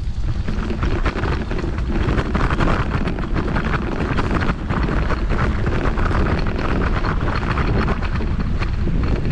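Loud, constant wind buffeting on the microphone, with a heavy low rumble and rough crackle.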